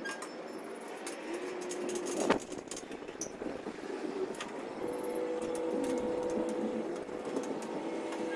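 Handling of sheet-metal grill panels and loose screws: small clicks and rattles, with one sharp knock a little over two seconds in. From about halfway, a steady hum of several held tones runs underneath.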